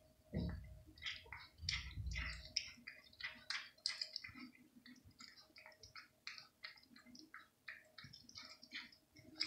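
Cat chewing raw meat: a quick, irregular run of short chewing sounds, several a second, with a low bump about half a second in.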